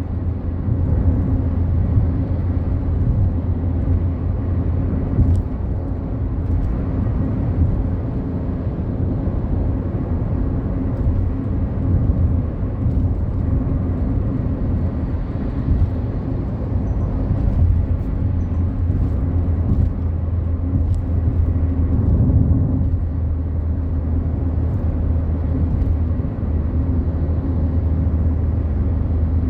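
Steady low engine drone and tyre rumble of a Fiat Palio Fire cruising on a highway, heard from inside the cabin, with faint clicks now and then. The drone's tone shifts slightly about three-quarters of the way through.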